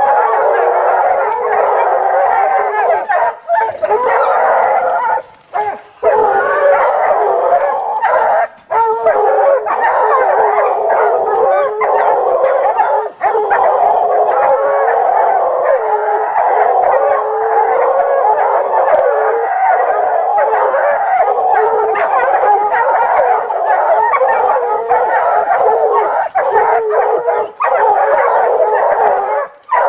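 Hound baying almost without pause, long wavering howls broken by a few short gaps, as it holds a mountain lion at bay.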